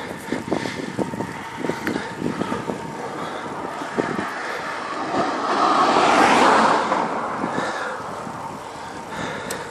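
Wind and road noise on a camera carried on a moving road bike: a steady rush of air with scattered short knocks and rattles from the bike in the first few seconds, then a louder rush that swells about five seconds in and fades by about eight.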